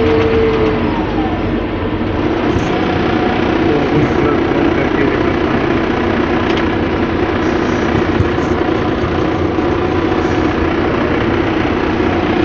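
Heavy construction machinery's diesel engine running steadily.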